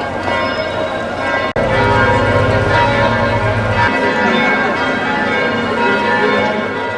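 Church bells pealing, several bells ringing together and overlapping. The sound drops out for an instant about one and a half seconds in, and a low rumble sits under the bells for the next two seconds or so.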